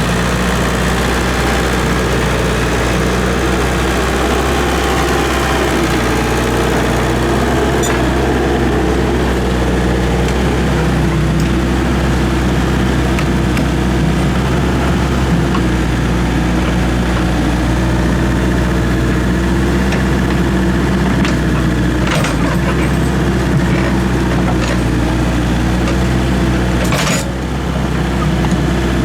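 Excavator's diesel engine running steadily, with a few sharp knocks in the second half.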